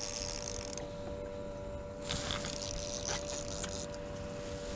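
Fishing reel buzzing in short bursts while a hooked striped bass pulls against a bent rod, over the steady hum of an electric trolling motor.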